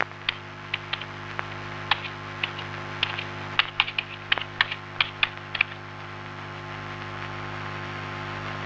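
Typing on a computer keyboard: irregular sharp key clicks for about five and a half seconds, then they stop, over a steady low hum.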